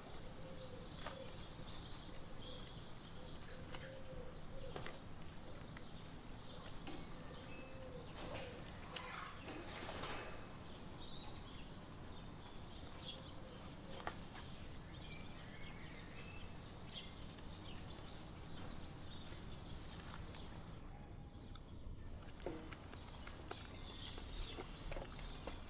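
Faint outdoor morning ambience: scattered chirps of small birds over a low, steady background rumble, with an occasional click.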